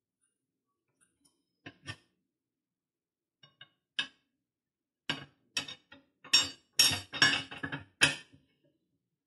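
Steel tire irons clinking and knocking against each other and the aluminium alloy wheel rim while levering a tire bead over the rim by hand. A few light clicks come first, then a quick run of louder metallic clinks in the last few seconds.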